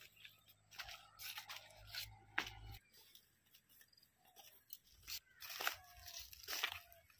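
Wild greens being cut and plucked by hand: a string of short, sharp snaps, tears and crunches of stems and dry stubble.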